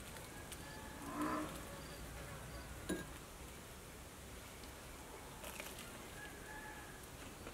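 Faint outdoor background with insects buzzing. A short voiced "mm" from the person eating comes about a second in, and a single sharp click just before three seconds.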